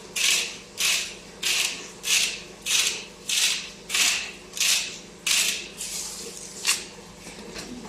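Rhythmic scraping strokes of kitchen food preparation, about three every two seconds, each starting sharply and fading. They stop about six seconds in, followed by a single sharp click.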